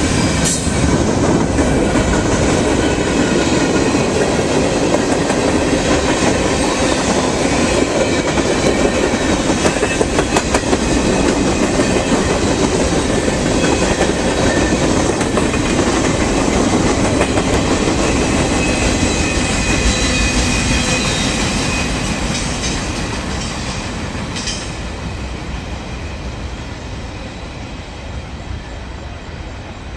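Freight train cars rolling past at speed, their wheels clicking over rail joints, the sound fading away over the last third as the end of the train passes.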